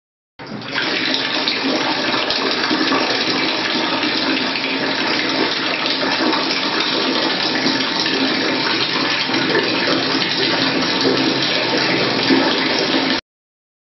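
Water running steadily from a wall-mounted bathroom tap, starting about half a second in and cutting off suddenly near the end.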